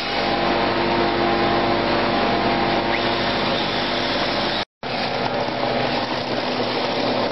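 Peanut roaster machinery running: a loud, even whooshing noise with a steady hum underneath. It drops out for a split second a little past halfway, then the same machine noise carries on.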